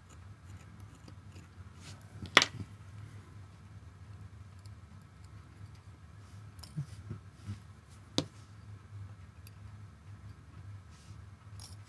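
Steel watchmaker's tweezers clicking against the small metal parts of a Seiko 7548 quartz movement: two sharp clicks about six seconds apart, with a few fainter ticks between them.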